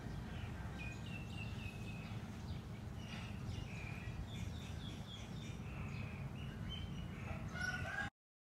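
Outdoor ambience: a steady low rumble with birds chirping in short, high calls scattered throughout, a louder run of calls near the end, then the sound cuts off suddenly.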